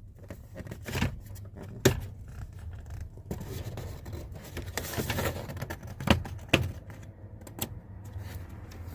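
A plastic under-dash fuse panel cover being handled and fitted back into place, with scraping and a few sharp clicks and knocks as it seats, the loudest about two seconds in and two more about six seconds in, over a low steady hum.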